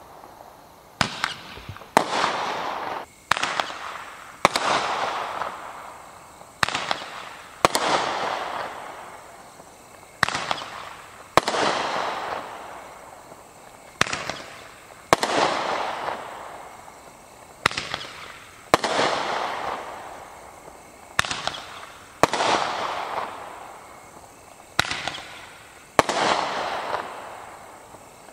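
Big Dawg 8-shot Roman candles firing shot after shot, about one every three and a half seconds. Each shot is a pair of sharp pops about a second apart, followed by a hiss that fades away.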